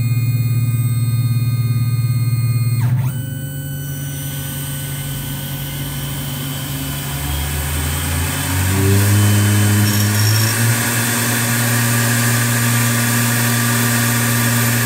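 A Tormach PCNC 770 CNC mill running, its motors making a steady whine with several tones. About three seconds in, the pitch falls sharply and a hiss takes over. Around eight to nine seconds a motor tone climbs in steps, then settles into a steady hum as the end mill works the brass.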